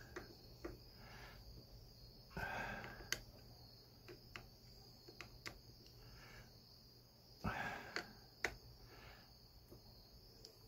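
Faint handling noise from an all-in-one CPU cooler's pump head being held and turned in the hand: scattered small clicks and two short rustling bursts, one about two seconds in and one at about seven and a half seconds. Under it runs a steady high-pitched whine.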